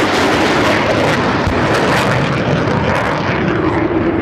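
Panavia Tornado GR4's twin RB199 turbofan engines in reheat (afterburner): a loud, steady jet roar with a crackling edge.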